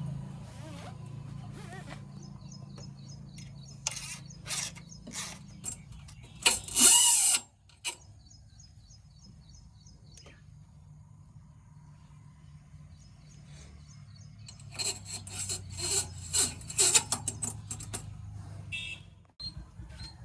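JCB backhoe loader's diesel engine running steadily, with two spells of sharp clatter, about a quarter of the way in and again near three quarters. A high, evenly ticking chirp comes and goes over the engine.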